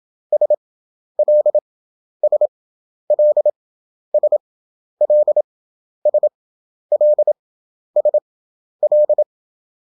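Morse code practice tones: a single steady-pitched sidetone keying dots and dashes at 27 words per minute character speed with wide Farnsworth spacing (11 wpm effective). Ten quick letter groups at an even pace, a two-letter country abbreviation sent five times over.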